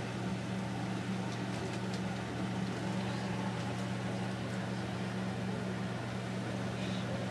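Steady low electric hum from a running household appliance motor, unchanging throughout, with a few faint light ticks.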